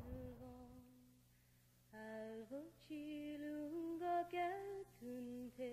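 A woman singing a slow Hungarian lullaby unaccompanied, in long held notes with gliding steps between them. A held note fades out in the first second, and after a short pause the tune resumes about two seconds in.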